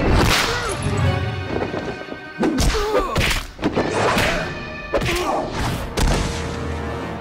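Cartoon fight soundtrack: a driving action score under a series of hard punch and impact hits, about one a second, with short grunts between them.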